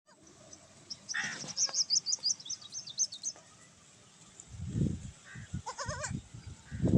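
Small birds chirping in a rapid high twittering run, then a baby goat gives a short, wavering bleat about six seconds in. Low dull thumps come just before the bleat and again near the end.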